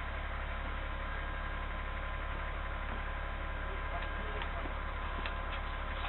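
Steady low hum with a couple of faint steady tones above it and a few faint ticks.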